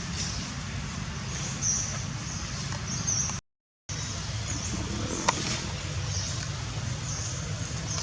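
Repeated short, high chirping calls over a steady low rumble, with a single sharp click about five seconds in. The sound drops out completely for half a second a few seconds in.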